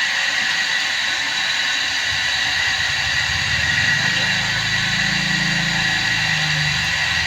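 Motor-driven dowel-making machine running with a steady high whine. About two seconds in, a low, rapid rattling hum joins and grows strongest in the middle.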